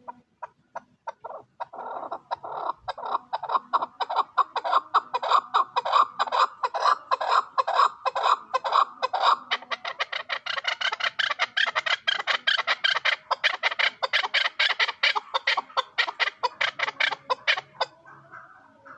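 Young chukar partridge calling: a long run of short repeated notes that starts slowly and quickens to several a second. About halfway through the notes turn higher and brighter, and the run stops about a second before the end.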